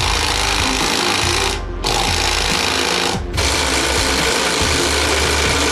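Cordless impact wrench hammering as it undoes the wheel lug nuts on a Yamaha Raptor 660 ATV. It runs in three long stretches, with two short pauses, about one and a half and three seconds in.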